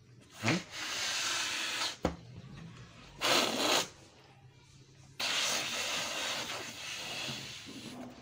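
Rubber balloon rubbed against carpet: three stretches of rubbing noise, the first opening with a short rising squeak, a brief louder one in the middle, and a longer one that slowly fades.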